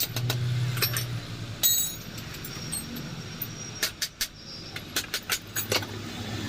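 Metal parts and tools clinking and knocking against each other, with one louder, ringing metallic clank about two seconds in, over a low hum that comes and goes.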